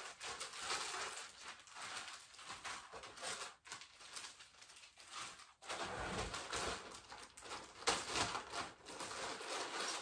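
Clear plastic packaging bag crinkling and rustling as it is handled and pulled off a packed item, with a couple of soft thumps about six and eight seconds in.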